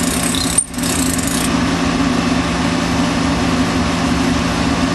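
Steady mechanical hum with hiss in the room, unchanging apart from a brief dip about half a second in.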